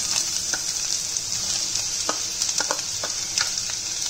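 Sliced onions sizzling steadily in hot oil in a kadhai, just added to start sautéing, with a few light clicks of a steel ladle against the pan as they are spread and stirred.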